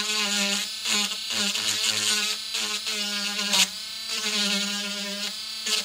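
Handheld rotary tool grinding into the plastic casing of a Dallas real-time-clock chip, cutting down toward the embedded battery's metal. The motor runs with a steady whine that dips and recovers several times as the bit bites into the plastic.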